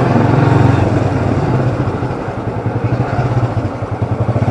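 Motorcycle engine running under way, its firing pulses steady; the engine note eases off and quietens in the second half.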